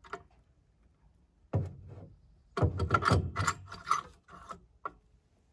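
Metal carburetor being worked onto the intake mounting studs and throttle linkage of an Onan generator engine by hand, scraping and rubbing metal on metal. One scrape about one and a half seconds in, then a run of scrapes and clicks lasting about two seconds, and a single click near the end.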